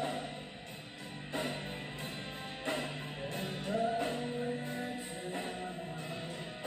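Live rock band playing, with singing over electric guitars.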